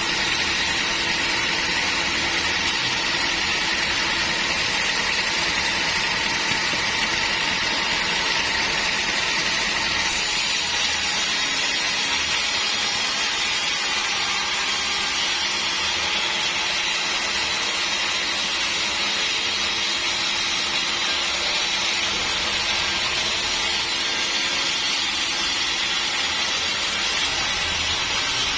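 Sawmill saw machinery running steadily: a continuous, even noise with a faint high whine through the first half.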